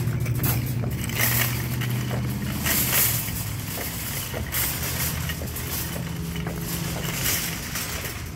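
Wheels rolling over rough, cracked asphalt, with a steady low hum and continuous small rattles and clatters from the moving frame.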